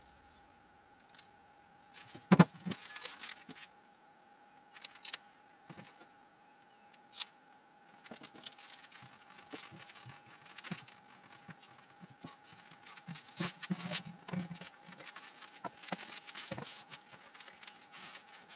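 Small clicks, rustles and taps of hands at a wooden chest, peeling the backing off self-adhesive felt pads and pressing them onto the wood, with one sharp knock about two seconds in. A faint steady tone runs underneath.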